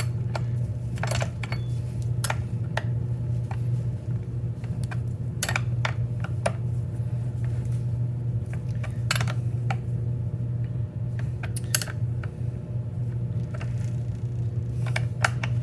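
Scattered metal clinks and taps of a crescent wrench and chainsaw parts being handled, spaced a second or more apart, over a steady low hum.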